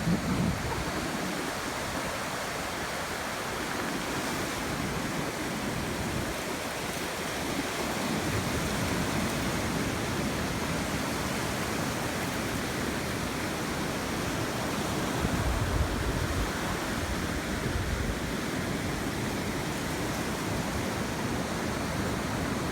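Steady wash of sea surf breaking on a beach, with a few louder low rumbles about two-thirds of the way through.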